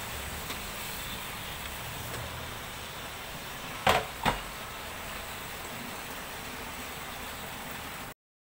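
Two sharp knocks on a wooden cutting board about a third of a second apart, the first louder and briefly ringing, over a steady background noise.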